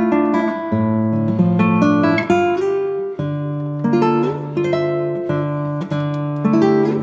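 Background music of a plucked acoustic guitar, single picked notes and held chords in a steady pattern.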